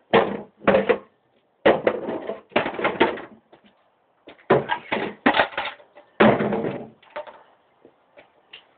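Hammer striking and breaking up boxes: about seven irregular heavy knocks and crunches with short gaps between them.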